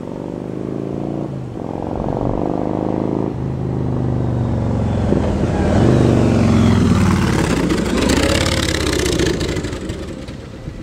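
2009 Yamaha Star Raider's air-cooled V-twin through a Cobra Speedster Swept exhaust with wrapped baffles, accelerating up through the gears with the pitch climbing and dropping at each shift, then going by loudest a few seconds later and fading away.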